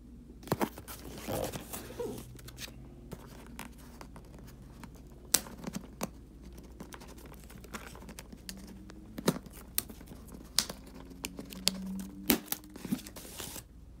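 Hands handling a cardboard box: scraping, tapping and crinkling of cardboard and packaging tape, with several sharp clicks scattered throughout.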